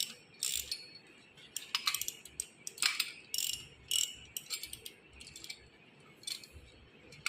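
Irregular metallic clicks and short scrapes from a bearing puller being worked, roughly one or two a second, thinning out after about five seconds.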